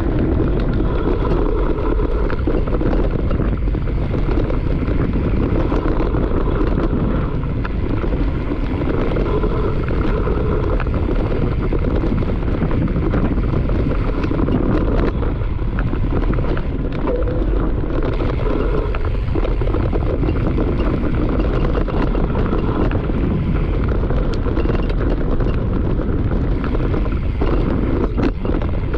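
Wind buffeting the microphone of a camera on a mountain bike riding downhill, over steady tyre rumble on the dirt trail and a constant patter of small clicks and knocks as the bike rattles over rough ground.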